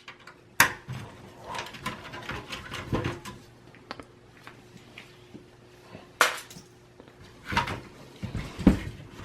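Small clicks, taps and light knocks of metal and plastic as a computer motherboard is worked loose and lifted out of a small-form-factor desktop's sheet-metal chassis. A sharper knock comes about half a second in and another at about six seconds, with a few heavier thumps near the end.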